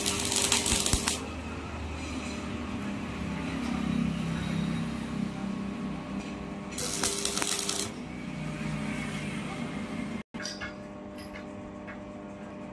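Stick (arc) welding: the electrode arc crackling and sizzling in two short tack welds joining steel grill bars, one in the first second and another about seven seconds in, each lasting about a second.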